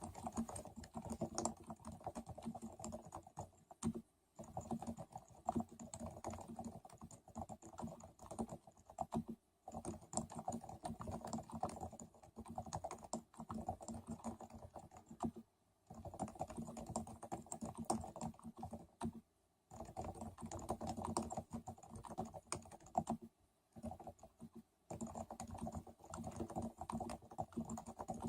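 Continuous typing on a Ducky Realforce Silent keyboard with silenced 30 g Topre electrostatic capacitive switches: a rapid, steady run of keystrokes broken by short pauses every few seconds.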